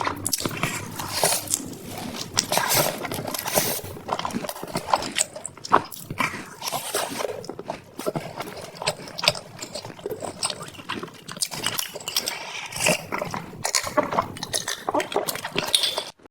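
Close-miked eating: wet chewing and crunching of food in quick, irregular clicks and smacks.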